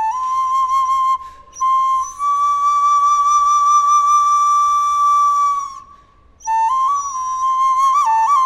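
A Maya wind instrument sounding single clear notes: a short note, a long held note of about four seconds, then a few quick notes of a melody near the end.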